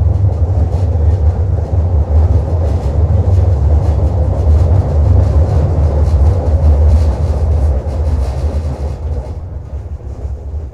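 Tram running on its rails, a loud steady low rumble with rattle, heard from inside the car, dying down over the last few seconds as it slows.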